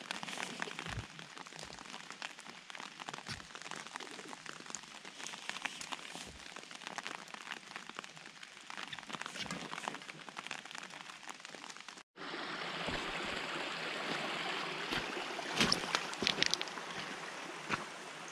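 Steady rain pattering on a wet wooden deck, with many fine drop ticks. About twelve seconds in the sound cuts abruptly to a louder, denser rain hiss, with a few sharp crunches of footsteps on wet gravel near the end.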